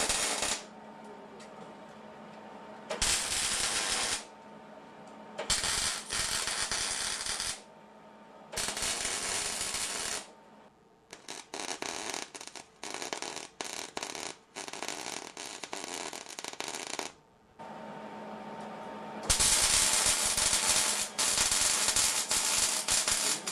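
Wire-feed welder's arc crackling as it tack-welds a steel frame, in separate tacks of one to two seconds each, then a run of quick stop-start bursts, and a longer continuous weld near the end. A steady hum fills the gaps between tacks.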